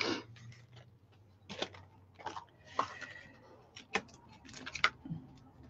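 Scattered light clicks, taps and rustles of card and plastic being handled on a cutting mat, as card pieces are slid aside and a clear-stamp sheet in its plastic packaging is picked up.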